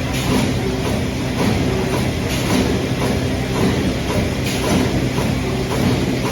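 Trumpf Trumatic 2010R CNC turret punch press running, with a steady machine hum under a repeated clattering of punch strokes and sheet movement.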